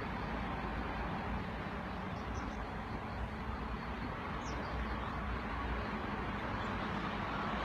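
Steady rushing noise of the flooded Tama River swollen by a typhoon, with a low rumble like wind on the microphone. A couple of faint high chirps come about two and four and a half seconds in.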